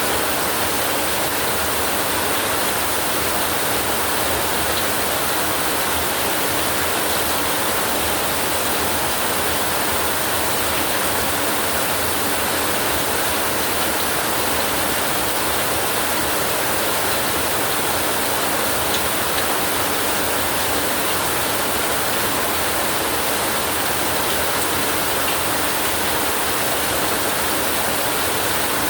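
Heavy rain falling steadily, an even hiss with no thunder and no change in strength.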